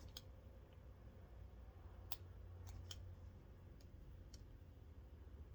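A few faint, sharp clicks from small hand tools working on an insulated wire as its insulation is stripped, about six scattered over several seconds, over a low steady hum.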